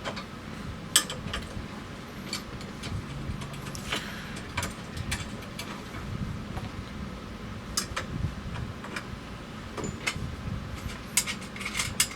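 A 13 mm wrench on the handle adjustment bracket bolt and rear axle nut of a Jang seeder as they are loosened and taken off: scattered light metal clicks, taps and clinks over a low steady hum.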